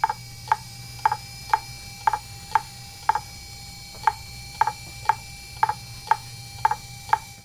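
A Fujitsu MHK2048AT 2.5-inch IDE laptop hard drive, powered up, clicking repeatedly about twice a second over a steady faint whine.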